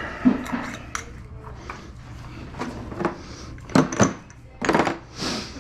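Kitchen cleanup clatter: a series of knocks and clinks as utensils and dishes are handled and put away, with a short hiss a little before the end.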